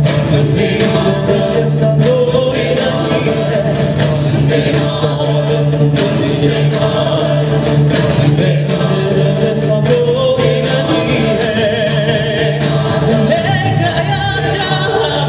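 Mixed choir of men's and women's voices singing together in harmony, each voice picked up by a handheld microphone and amplified.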